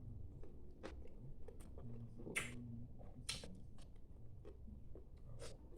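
A person chewing a mouthful of food close to the microphone, with soft wet mouth clicks and a few louder, sharper mouth sounds about one, two and a half and three and a half seconds in.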